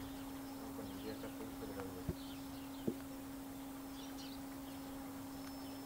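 Quiet outdoor background: a steady low hum with faint, high bird chirps here and there, and two soft clicks about two and three seconds in.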